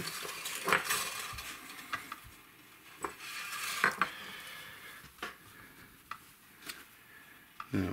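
A cloth rubbing over the glossy top of a Les Paul guitar body, with scattered light clicks and taps from handling.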